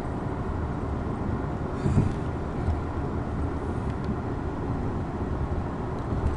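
Steady low engine and road noise heard inside a vehicle's cabin while driving, with a brief thump about two seconds in.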